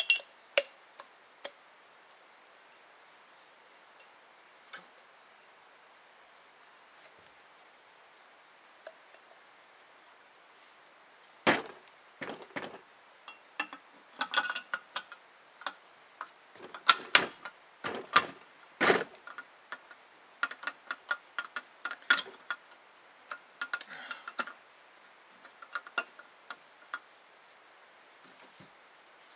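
Scattered clicks, clinks and knocks of metal parts of a Duo-Fast CN350 pneumatic framing nailer being handled and fitted back together, starting after a quiet stretch about a third of the way in. A faint steady high-pitched whine runs underneath.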